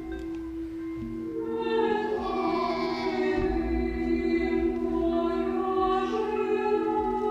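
Background music of sustained held notes, with choir-like singing coming in about a second and a half in.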